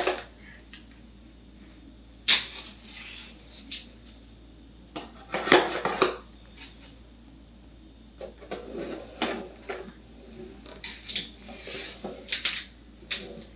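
Scattered clinks and clatters of dishes and cutlery being handled, with short quiet gaps between them.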